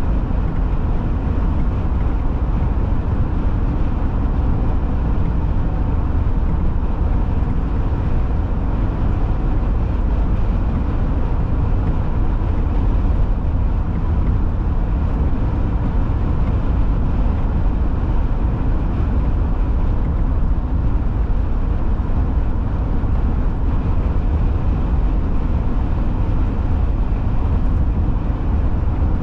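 Steady low rumble of a car cruising at highway speed: tyre and road noise with engine, unchanging throughout.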